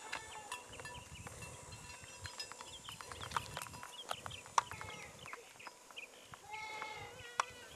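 Goats bleating, with one clear quavering bleat near the end, among scattered clicks and snaps of dry brush.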